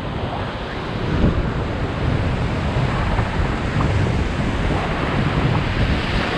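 Whitewater of a big river rapid rushing and churning around a raft as it runs into the waves, a steady rush of water with wind rumbling on the microphone.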